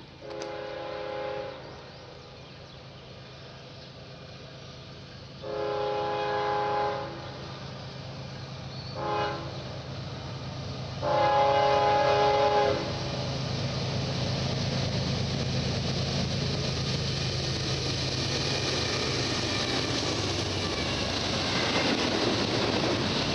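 Freight locomotive air horn sounding the grade-crossing signal, two long blasts, one short and one long, as the train approaches. From about halfway on, the diesel locomotives and the double-stack container cars rumble steadily past on the rails.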